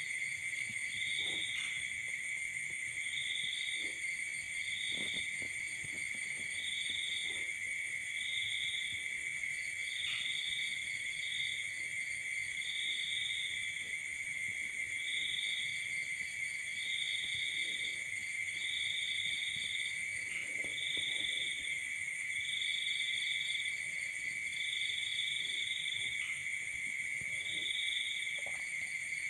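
Night insects chirping: a steady high trill with a louder pulsed chirp above it, repeating every second or two.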